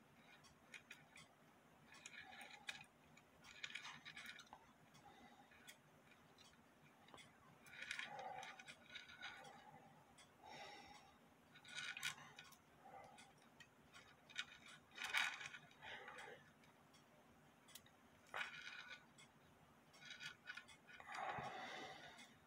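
Faint, irregular small metal clicks and scrapes of fingers handling a thin wire on a brass cuckoo clock movement.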